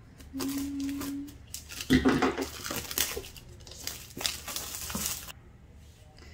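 A box cutter slits the seal on a cardboard gift box, with a steady buzzing scrape lasting about a second near the start. A clear plastic seal sticker then crackles and tears as it is peeled off the box.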